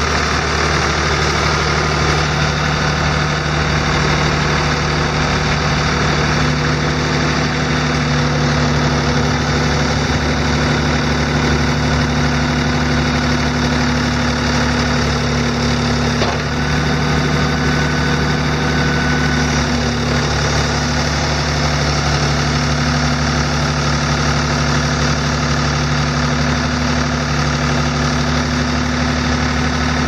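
Ford 555A backhoe's three-cylinder diesel engine running steadily near idle while the backhoe arm is worked, the engine note shifting slightly a few times, with a brief click about halfway through.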